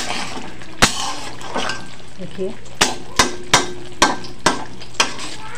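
Steel spoon stirring thick masala gravy in a steel kadhai, knocking and clinking against the pan about seven times over a steady sizzle of the cooked-down masala in oil.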